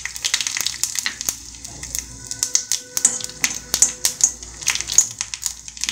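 Mustard seeds popping and spluttering in hot oil in an iron kadai: a dense, irregular crackle of sharp pops as the seeds burst during tempering.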